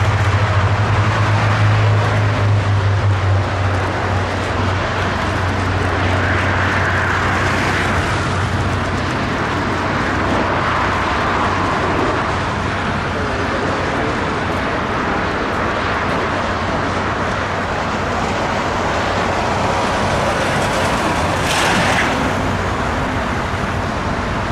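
Boeing 787 jet engines on landing, a steady rush. A low hum early on fades out, the sound swells in the middle as the jet passes low overhead to touch down, and it brightens briefly near the end as it rolls out.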